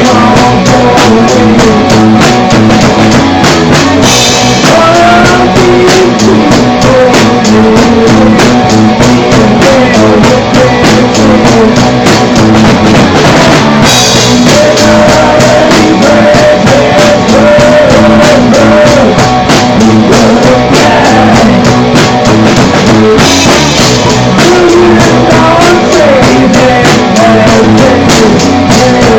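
Loud punk rock song played by a band with drum kit and singing, dense and steady throughout.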